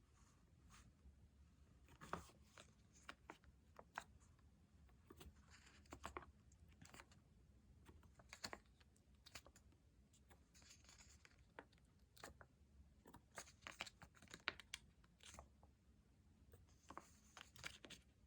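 Faint paper-craft handling: stickers peeling off their backing sheets and paper rustling, with small taps and clicks at irregular intervals.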